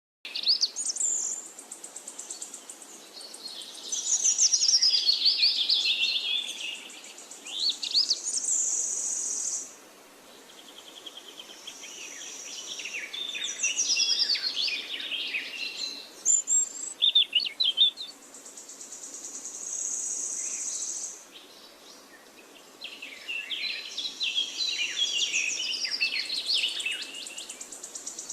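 Birdsong: quick, varied chirping and warbling phrases, with a steady high-pitched buzz in the pauses between them.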